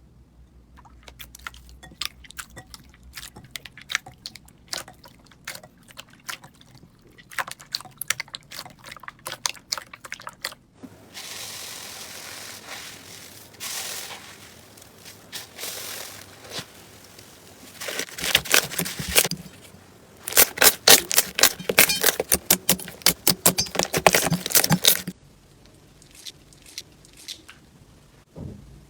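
Slime being squeezed, poked and stretched by hand, making sticky clicks and pops. Scattered small pops over the first ten seconds give way to a softer, steadier squelching, then a dense, loud run of crackling pops before it quietens near the end.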